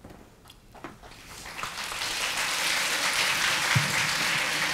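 Large audience applauding, the clapping building up about a second in and then holding steady.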